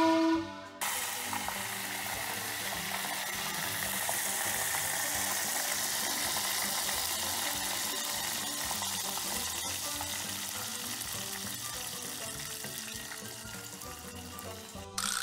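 Breaded chicken cartilage karaage deep-frying in a small pot of oil: a steady bubbling sizzle with fine crackles, easing slightly toward the end. It starts about a second in, as a loud short musical jingle cuts off.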